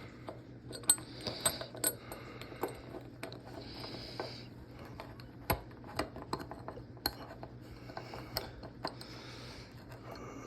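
Small steel ratchet parts clicking and clinking irregularly as the pawl is worked into a ratchet head by hand, with a couple of sharper metal taps.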